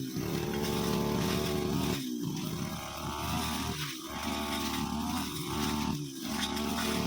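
Brushcutter engine running fast, its pitch and level dipping briefly about every two seconds and then picking back up.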